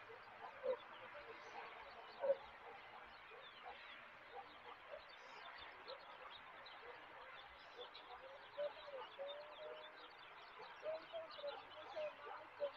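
Many birds chirping in a dense chorus, with scattered lower calls mixed in.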